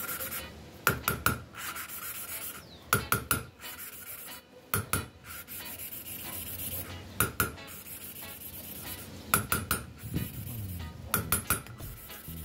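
A valve being hand-lapped into its seat in a motorcycle cylinder head: the valve face grinds against the seat through lapping compound in a steady gritty rasp, the sound of the paste cutting the seat. About every two seconds it is broken by a short cluster of metallic clicks.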